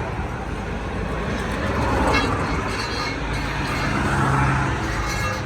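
Road traffic noise: motor vehicles running and passing, swelling slightly twice.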